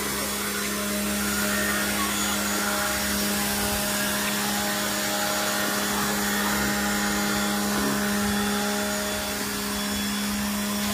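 Agaro electric high-pressure car washer running steadily, a constant motor-pump hum under the hiss of its water jet spraying the car's bodywork.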